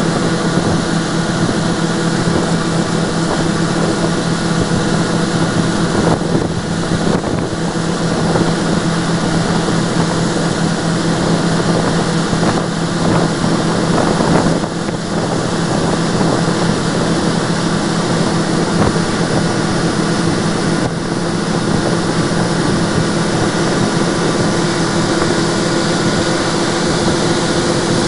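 John Deere WTS 9680 combine running at a steady drone while its unloading auger pours grain into a trailer.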